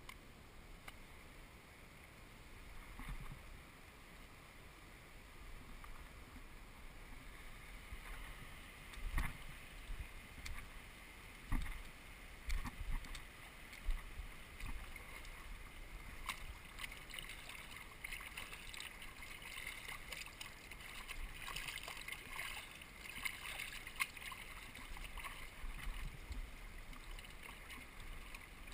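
Shallow river running and rippling over stones, swelling in the second half, with a few sharp knocks and low bumps about a third of the way in.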